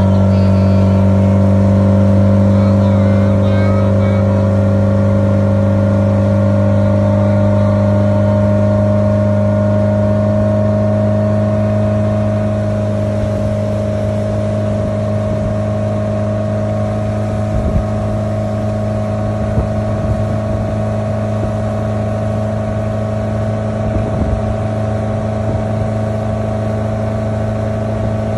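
A small fishing boat's motor running at a steady speed while the boat is underway, a constant droning hum. It eases a little in loudness partway through.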